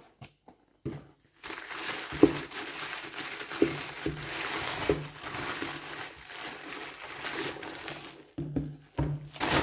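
Packing paper unwrapped and crumpled by hand: a continuous crinkling rustle that starts about a second and a half in, with a few soft knocks along the way.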